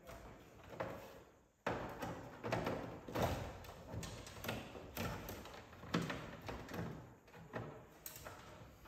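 Irregular knocks, clicks and plastic rattles from the housing and covers of a ductless mini-split wall unit being handled and worked with a screwdriver. The sounds start abruptly about a second and a half in, after a brief fade to near quiet.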